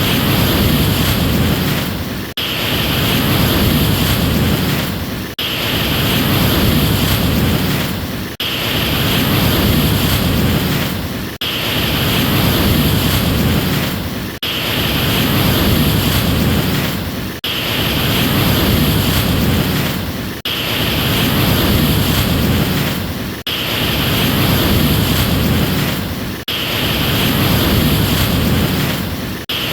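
Ocean surf as a steady wash of wave noise, playing as a short loop that repeats about every three seconds with a brief dip in level between repeats.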